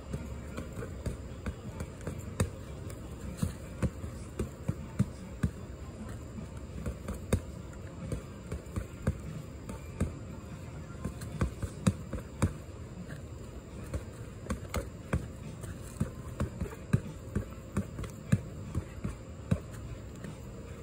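Boxing gloves punching a padded body protector strapped to a tree trunk: a long run of sharp thuds, landing in quick combinations of several punches with short pauses between.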